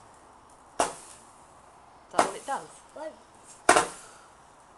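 Three sharp firework cracks, about a second and a half apart, each dying away quickly.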